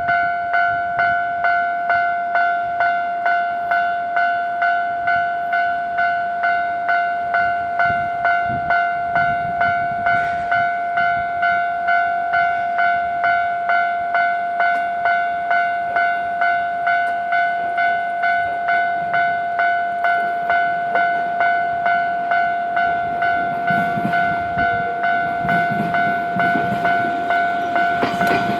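Japanese railway level-crossing alarm ringing steadily, an electronic bell striking about one and a half times a second. The low rumble of a train on the tracks rises underneath near the end.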